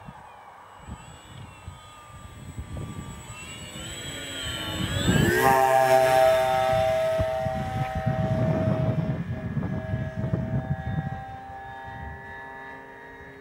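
Radio-controlled model of a twin-engine Fairchild C-123 Provider making a low pass overhead. The whine of its propellers rises in pitch as it approaches, is loudest as it passes about five to six seconds in, then drops in pitch and fades as it flies away.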